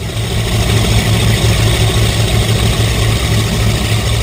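Cougar powerboat's engines running at speed, a steady low drone under loud rushing wind and churning wake water.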